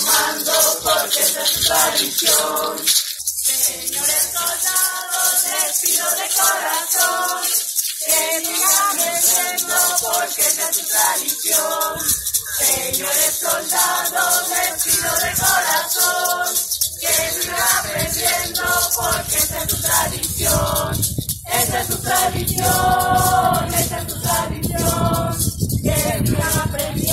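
A group of voices singing a chant together in phrases broken by short pauses, over the fast, steady shaking of rattles.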